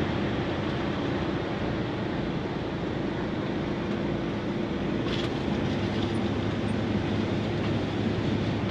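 A motorhome driving slowly: its engine and road noise make a steady hum inside the cabin.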